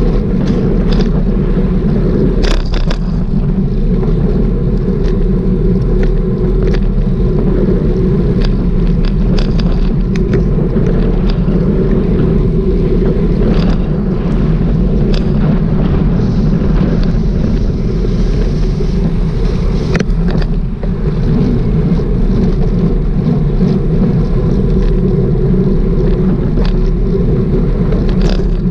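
Wheels rolling on rough street asphalt: a steady rumble with scattered sharp clicks over cracks, and wind on the microphone.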